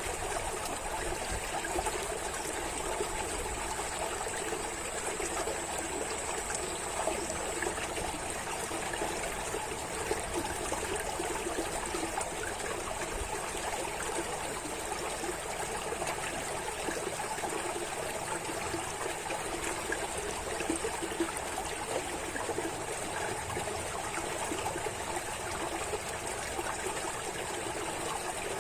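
Running water flowing and trickling steadily, like a small stream, at an even level without breaks.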